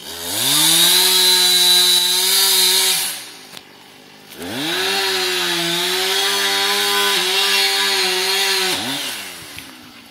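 Husqvarna 455 Rancher two-stroke chainsaw brought up to full throttle twice, about three seconds and then about four and a half seconds, dropping back toward idle in between and at the end, as it cuts into a dead oak.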